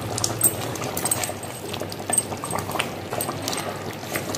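Chicken gravy boiling in a clay pot, bubbling with many small pops over a steady hiss.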